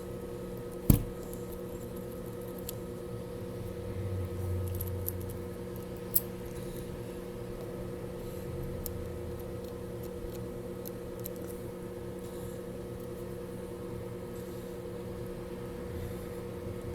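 Small parts and tools being handled at a repair bench over a steady electrical hum, with faint ticks throughout, a sharp knock about a second in and a click about six seconds in.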